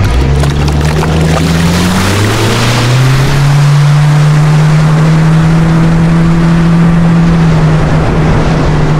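Boat's outboard motor rising in pitch as it speeds up over the first few seconds, then running steadily at cruising speed, with wind and water rushing past the hull.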